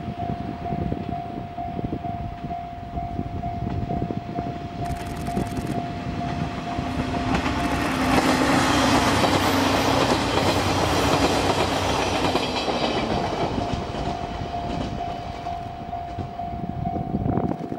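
A two-car KiHa 58/KiHa 28 diesel railcar set with DMH17 diesel engines passing: the engine note and wheel clatter grow louder as it approaches, peak about eight to twelve seconds in, then fade as it moves away. A steady repeating warning tone sounds throughout, drowned out while the train goes by.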